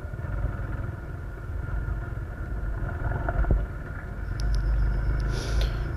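Motor vehicle on the move: a steady low engine and road rumble, with a few faint high ticks about four to five seconds in.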